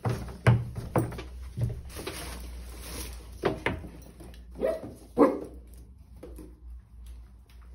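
A Pomeranian and Dalmatian puppies barking and yipping as they tussle: about seven short, sharp barks and yips over the first five seconds or so, then it goes quieter.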